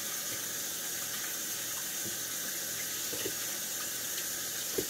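Kitchen faucet running steadily into the sink while hands are rinsed under it.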